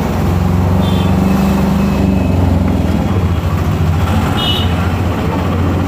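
Engine of a moving road vehicle running steadily, a low drone, with street traffic around it. Two brief high-pitched tones sound about a second in and again past four seconds.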